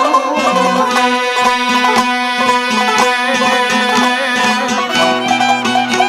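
Instrumental passage of traditional Albanian folk music: a violin plays the melody with vibrato over a steady, rhythmic string accompaniment and a held low note.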